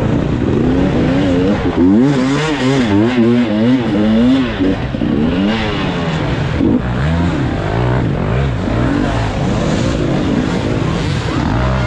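Enduro dirt bike engine, heard from the rider's helmet, revving up and down in quick throttle blips. The pitch jumps up and down several times a second, most busily in the first half.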